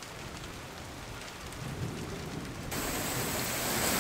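Heavy rain pouring, with a low rumble building in about halfway through. Near the end the sound switches abruptly to a louder, hissier downpour.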